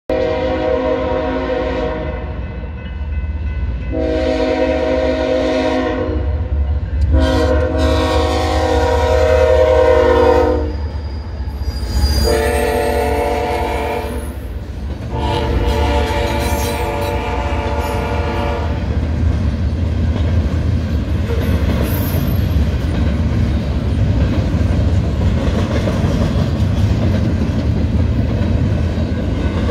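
Air horn of a BNSF GE ES44 diesel locomotive sounding a string of long blasts for the grade crossing over the steady rumble of the passing train. From about 19 s on only the rolling noise and clatter of double-stack intermodal cars going past remains.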